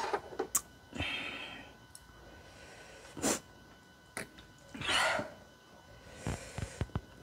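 Close-miked eating sounds at a meal: several short, airy breaths or sniffs, with sharp light clicks of wooden chopsticks against the dishes and a few soft knocks near the end.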